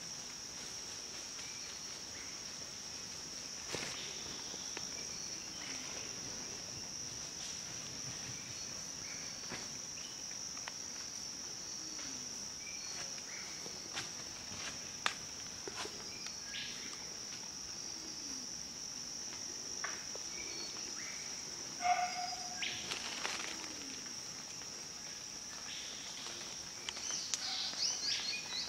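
Steady high-pitched insect chorus in tropical forest, with scattered faint clicks and snaps that grow busier about twenty-two seconds in and near the end.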